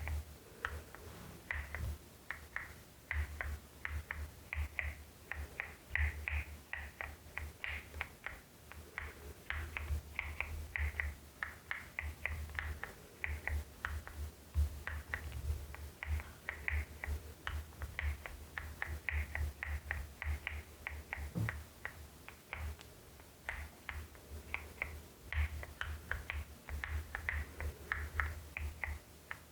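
Continuous fast typing on a LEOBOG Hi75 mechanical keyboard with Nimbus V3 switches: a quick, uneven stream of thocky keystrokes in runs with short pauses.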